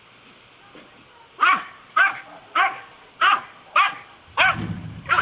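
Dachshund barking repeatedly at a spray of water from a hose: about seven sharp barks, one every half second or so, starting about a second and a half in. A low rumbling noise comes in under the last few barks.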